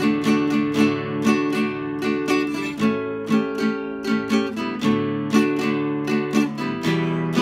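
Nylon-string classical guitar strummed in a steady rhythm as a song accompaniment, several strokes a second, with the chord changing about three and five seconds in.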